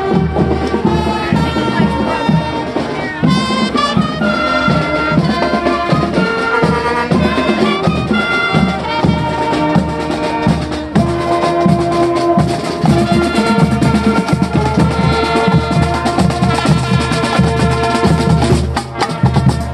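High school marching band playing: brass and saxophones carry a melody over a steady beat of drums. It grows somewhat fainter near the end.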